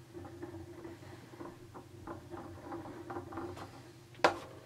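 Marble lazy-susan turntable being turned by hand: a faint steady hum from its bearing with light irregular ticking and scraping. About four seconds in comes a single sharp knock as a blister-packed figure box is lifted off it.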